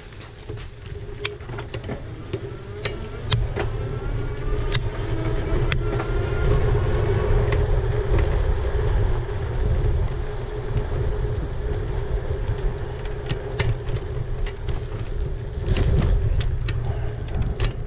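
Riding noise from an e-bike on the move: a low rumble with a steady hum under it and scattered clicks and rattles. The rumble swells in the middle and again near the end.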